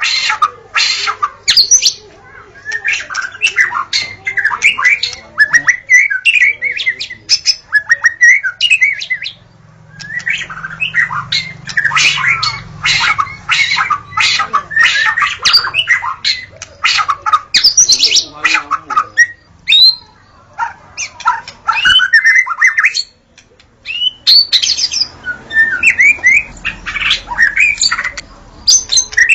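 White-rumped shama (murai batu) singing a fast, varied song of whistles, chirps and harsh squawking notes, in runs broken by brief pauses.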